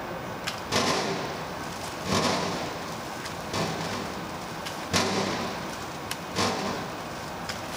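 Fish cake production line machinery running: a steady hum with a hissing swish repeating about every second and a half, and a few light clicks.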